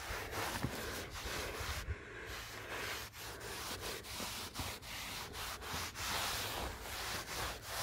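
A microfibre cloth rubbed back and forth over the freshly sanded bottom paint of a boat hull, wiping away the sanding dust: a dry rubbing in repeated, irregular strokes.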